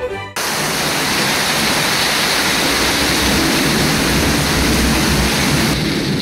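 Heavy rain downpour, a loud steady hiss that cuts in suddenly just after the start and fades out near the end.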